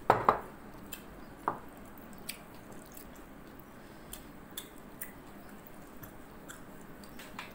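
A couple of knocks of a ceramic bowl set down on the table at the start, with another knock a second later, then soft, wet mouth sounds and small clicks of someone chewing rice and fermented fish eaten by hand.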